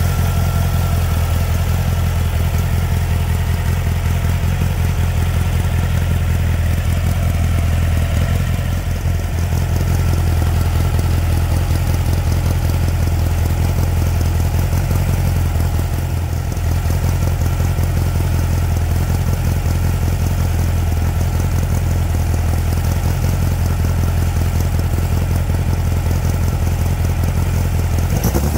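Turbocharged air-cooled VW Beetle flat-four engine running steadily at an even, unchanging pitch.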